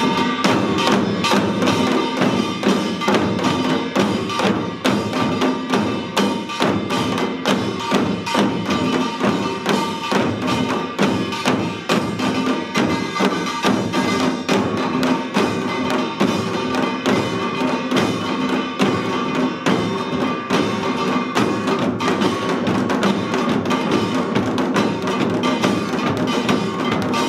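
Samul nori ensemble playing a fast Yeongnam rhythm. Many janggu hourglass drums and buk barrel drums are beaten in rapid, dense strokes, with the small kkwaenggwari gong clanging and the jing gong ringing over them.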